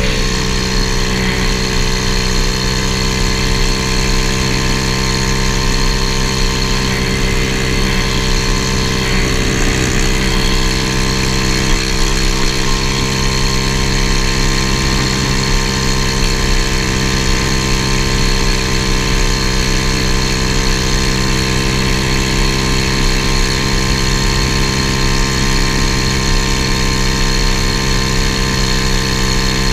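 Single-cylinder 125cc pit bike engine on a Honda ATC70 mini three-wheeler running steadily at cruising speed, its pitch held even with no revving or gear changes.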